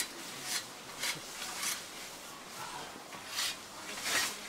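Scythes swishing through long grass in short, sharp strokes: three or four about half a second apart, a pause, then two more near the end.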